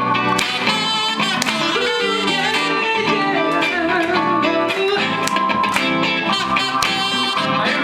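Music with guitar: plucked guitar notes under a wavering melodic line.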